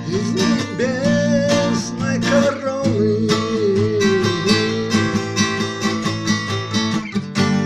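A man singing long, held notes over a strummed acoustic guitar.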